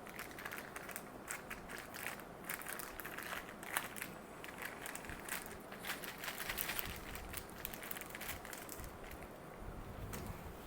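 Plastic packaging crinkling and crackling in irregular bursts as a camera strap is handled and unwrapped.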